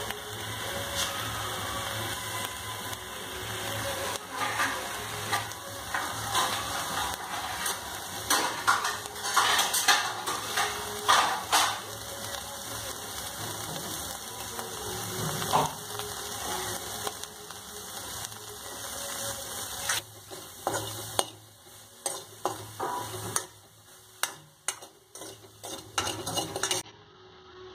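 Dry fish, green chillies and ginger sizzling in a dry aluminium kadai with baking soda and no oil, with sharp crackles and pops. In the last few seconds a steel spoon scrapes and stirs the mixture, which is sticking to the pan because no water has been added yet.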